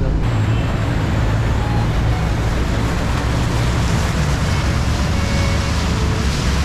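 Volvo B8R coach driving through heavy rain on a flooded highway: a steady rush of tyres on standing water and rain, over a low road and engine rumble.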